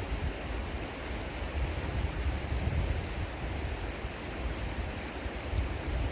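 Steady rush of river water, with wind buffeting the microphone in a fluctuating low rumble.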